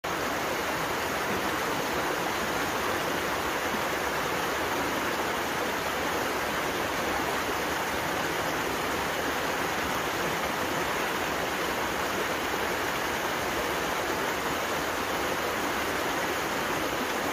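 A small mountain stream rushing over rocks: a steady, even sound of water with no change.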